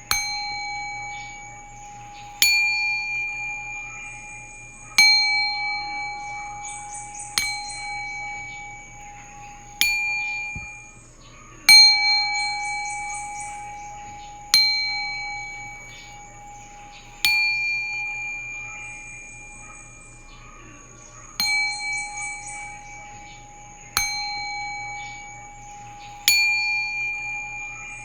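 A singing bowl struck about every two and a half seconds. Each strike rings out in several clear overlapping tones that slowly fade before the next strike.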